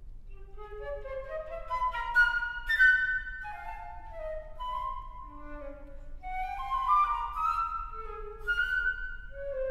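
Solo concert flute playing a twelve-tone contemporary piece without accompaniment: quick phrases of separate notes that climb and fall, with a few sharply attacked, louder notes.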